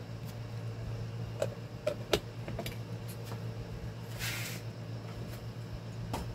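Faint clicks and light taps of small metal parts being handled as a new bushing is fitted into an electric fan's front bearing housing, with a brief hiss-like scrape about four seconds in, over a steady low hum.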